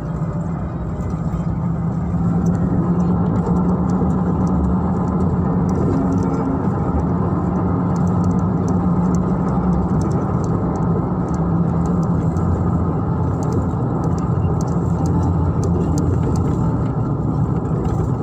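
Steady road and engine noise heard from inside a moving car's cabin: a low, even drone with no breaks.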